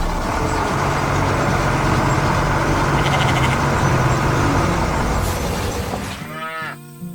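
A heavy vehicle engine running with a loud rushing noise that fades out about six seconds in. Near the end a lowing, cow-like animal call begins.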